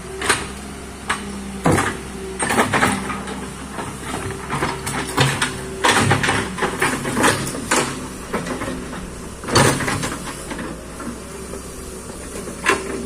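Excavator engine running at a steady drone, with irregular knocks and clatters throughout.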